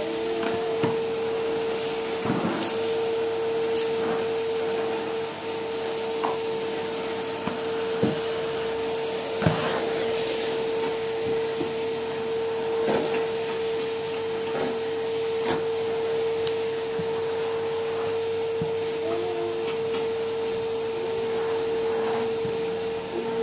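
Numatic Henry cylinder vacuum cleaner running steadily with a constant whine and hiss, with scattered knocks and clicks every few seconds.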